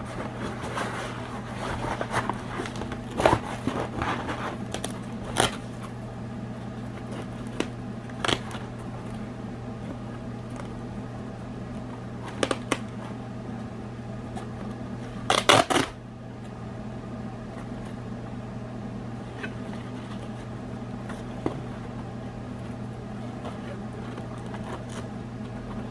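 A fabric car-seat organizer being put together by hand: scattered rustles, taps and knocks as stiff panels are handled and fitted into it, the loudest cluster a little past halfway, over a steady low hum.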